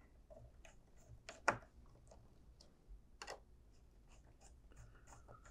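Faint handling clicks and small taps as wires are pressed into a power supply's screw terminal block by hand, with two sharper clicks, one about a second and a half in and one past three seconds.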